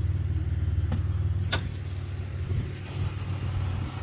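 Car engine idling steadily with a low, even, pulsing exhaust note. Two short knocks come about a second and a second and a half in.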